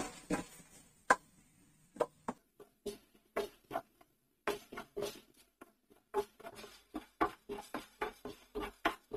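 Wooden spatula scraping and tapping across a nonstick frying pan while lentils, coriander seeds, peppercorns and dried red chillies are stirred and dry-roasted without oil. The strokes are short and irregular, sparse at first and coming faster from about halfway through.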